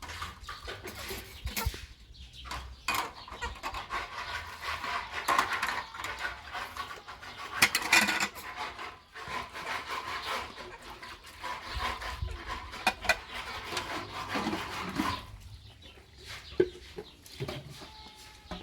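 Birds calling continuously, with scattered sharp clicks through it.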